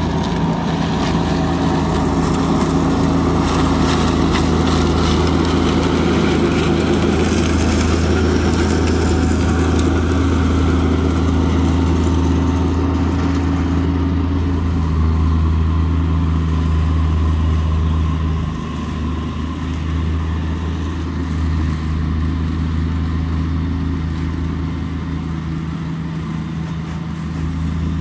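Amazone Profihopper 4WDi ride-on mower running steadily as it picks up frozen leaves: a low engine drone under the rushing hiss of air and leaves through its collector. The hiss fades about halfway through while the engine drone carries on.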